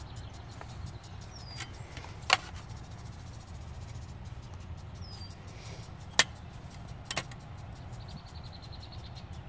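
Concrete patio block being tapped down level: two sharp knocks about four seconds apart, with a couple of fainter taps, over a steady low rumble.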